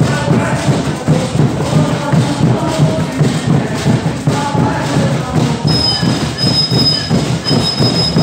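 Live folk drumming with singing: drums beat a dense, driving rhythm under voices. From about two-thirds of the way in, a high thin steady tone sounds in several stretches over the music.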